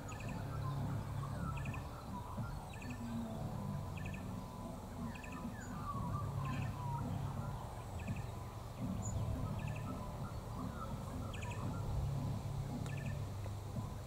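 Neighbours' pop music playing really loud: a low bass line with a regular faint tick about every three quarters of a second. A few faint bird chirps come over it, mostly about halfway through.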